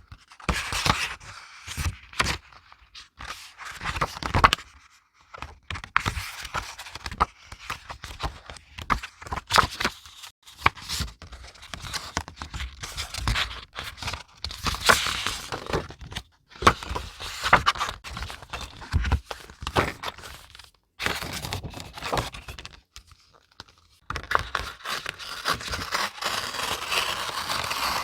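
Paper being handled close up for scrapbook journaling: sheets rustling, scraping and crackling in irregular spells of a second or a few seconds, broken by short pauses, with a few light taps.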